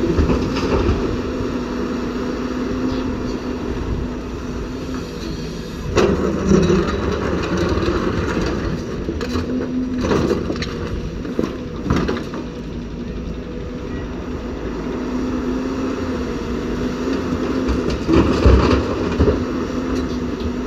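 JCB tracked excavator's diesel engine running steadily under load as it digs and loads rock into a dump truck, with sharp clatters of rock and the steel bucket about six, ten and twelve seconds in and again near the end.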